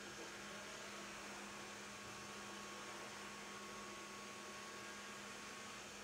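Robot vacuum cleaner running as it drives across a wooden floor: a faint, steady whir with a low hum, and a thin high whine that comes in about a second and a half in and stops just before the end.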